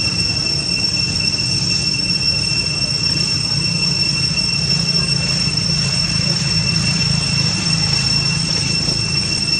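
A steady high-pitched whine at one unchanging pitch, over a low rumbling hum.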